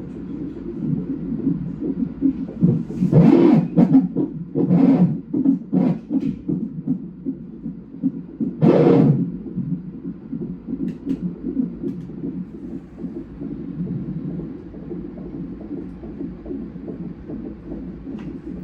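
Fetal heart monitor's Doppler speaker playing a 37-week twin's heartbeat during a non-stress test: a steady pulsing whoosh. Several louder swishes come about three to six seconds in and again near nine seconds.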